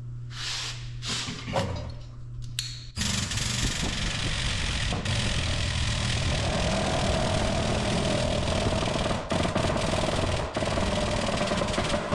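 Light metal clicks and knocks as parts are set in a shop press, then the press's air-over-hydraulic pump starts about three seconds in and runs with a loud, steady buzzing rattle, pressing new bearings onto a final drive motor shaft. A steady whine joins the pump noise about halfway through.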